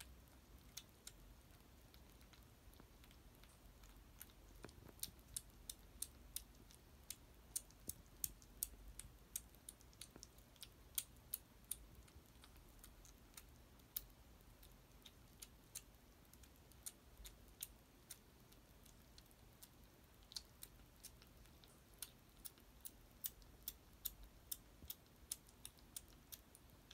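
A kitten crunching dry cat food: a run of small, sharp, irregular crunches, about two a second at their busiest, thinning out in the middle.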